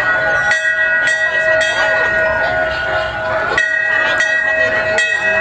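A loud, steady horn-like tone of several pitches held without change, broken by three brief gaps, about half a second in, just before four seconds and near five seconds, with faint voices underneath.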